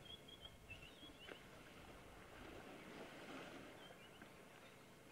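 Faint splashing and sloshing of water as two young elephant bulls wrestle in a waterhole, sounding like waves on a beach. A few small bird chirps sound early and again near the end, and there is a single light click a little over a second in.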